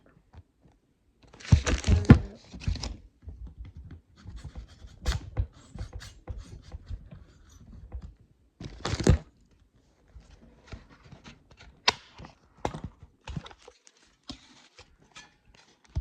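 Close handling noise: scattered taps, clicks and knocks with a few louder rustling bursts, about two seconds in and again near the middle.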